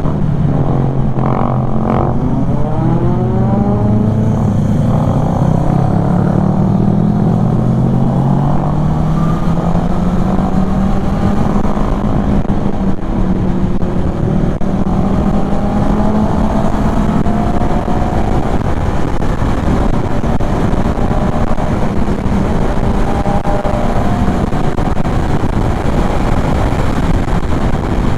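Kymco Xciting 400 scooter's single-cylinder engine running on the road under a haze of wind and road noise. The engine note falls over the first several seconds as the scooter slows, then rises gradually as it picks up speed again.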